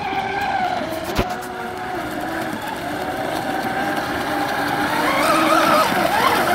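Two Fine Design Marine Snack Attack fast electric RC catamarans running at speed on 12S power: a high motor whine whose pitch shifts slowly, growing louder and wavering up and down over the last second and a half as one runs close by. A single sharp click about a second in.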